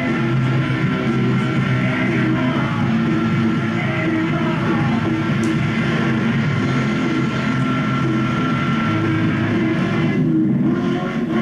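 Rock music with guitar, played loud and steady as the soundtrack of an off-road driving video.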